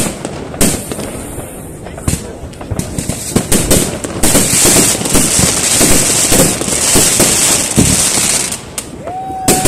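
Fireworks and firecrackers going off across the city: many sharp bangs and cracks, with a dense hissing crackle through the middle and a short whistle near the end.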